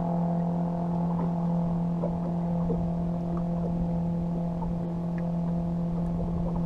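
A small electric motor on a bass boat hums steadily at one even pitch, with a few faint small ticks scattered through.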